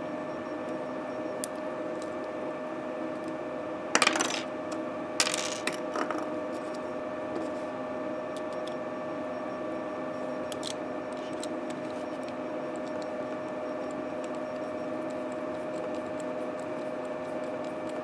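Small metal parts of a D-sub connector backshell clinking as they are handled, a few sharp clicks about four to six seconds in. Under them runs the steady hum of a heating furnace.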